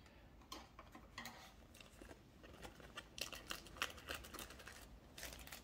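Faint handling noise: scattered light clicks and short rustles of piston-kit parts and their plastic packaging being handled, busiest in the second half.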